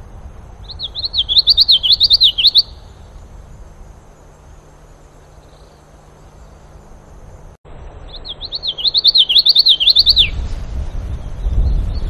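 Common yellowthroat singing twice, about six seconds apart. Each song is a quick run of repeated rolling phrases lasting about two seconds. A low rumble comes in near the end.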